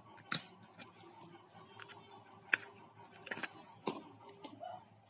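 Scattered light clicks and knocks of hard plastic and glass as a phone and its replacement display-and-touch panel are handled on a workbench, the loudest knock about two and a half seconds in and a quick cluster near four seconds.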